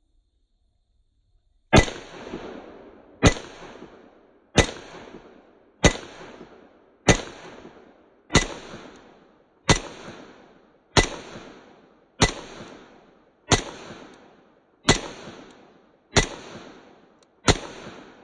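Thirteen shots from a double-stack IMEZ IJ70-18AH Makarov pistol in 9×18mm, fired at a steady pace of about one every 1.3 seconds, each followed by a short echoing tail. The last shot, near the end, empties the pistol and its slide locks back.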